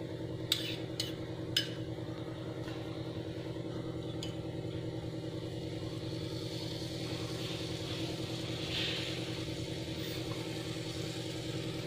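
Milk cream (malai) starting to sizzle faintly as it melts in a hot nonstick pan, the hiss growing through the second half. There are a few light spoon taps against the pan near the start. A steady low mechanical hum runs underneath throughout.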